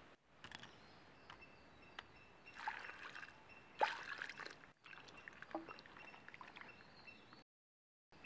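Water poured into a clay bowl of shrimp, splashing, the loudest moment a little under four seconds in, with small wet clicks and sloshes of shrimp being handled in the water.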